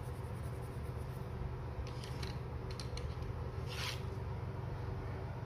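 Watercolour pencil scratching across paper for about the first second as a swatch is filled in. Then a few light clicks and a short rustle, two to four seconds in, as the pencil is handled and put down. A steady low hum runs underneath.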